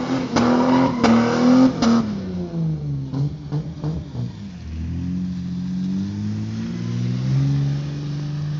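Nissan Patrol SUV's engine revving hard as it slides across a wet surface. The engine note drops about two seconds in, then climbs steadily again from about halfway.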